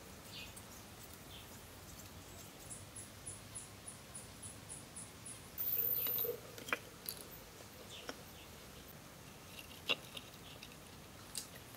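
Quiet outdoor ambience with a run of very high, rapid chirps from a small animal, about four a second, then a short high buzz near the middle. A few sharp light clicks follow as small bamboo pieces are handled and set on a mud wall.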